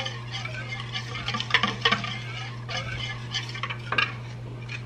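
Wire whisk stirring a thin milk, sugar and cornstarch pudding mixture in a stainless steel bowl, ticking and scraping against the metal at an uneven pace. A steady low hum runs underneath.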